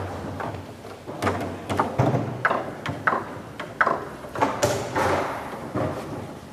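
Leonhart foosball table in play: a rally of irregular sharp knocks and clacks as the ball is struck by the players' figures and the rods are slammed, about a dozen hits.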